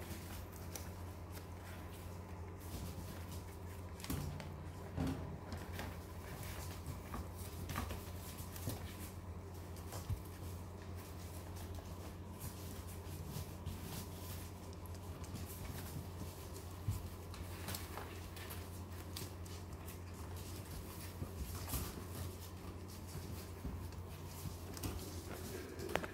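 Yorkshire terrier puppies moving about on newspaper, the paper rustling with scattered small clicks and scratches, over a steady low hum.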